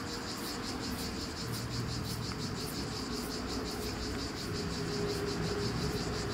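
Insects chirping in a steady pulsing chorus, about three pulses a second, over a low steady hum.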